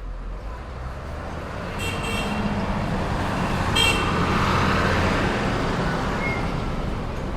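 City street traffic, with a motor vehicle approaching and passing close, its rumble swelling to a peak about four seconds in. Two brief high toots sound about two and four seconds in.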